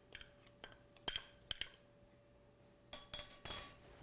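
A metal spoon clinking against a small glass bowl while mixing breadcrumbs and grated cheese: several quick light taps, then a louder short clatter near the end.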